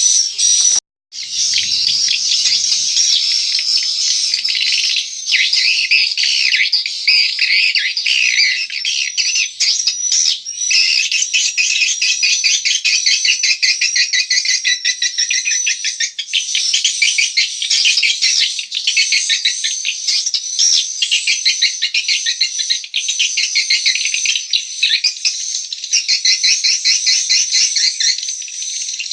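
Dense, continuous twittering and chirping of swiftlet calls filling a swiftlet house, with a brief dropout about a second in.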